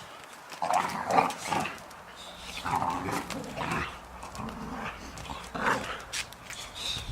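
Boxer dogs fighting: three bouts of dog vocalising, each lasting about a second, with quieter stretches between them and scattered sharp clicks from scuffling.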